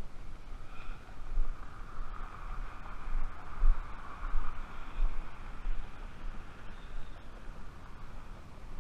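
A vehicle passing on the road alongside, its tyre noise swelling to a peak about midway and fading away, over low rumbling buffets of wind on the microphone.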